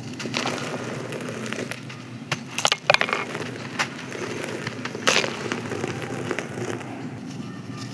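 Dry, crispy sand-cement being crumbled and crushed: continuous crunching and crackling with scattered sharp cracks, the loudest a cluster of snaps about three seconds in and another about five seconds in.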